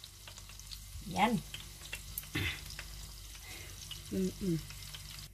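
Food frying in a pan: a steady sizzle with small crackles.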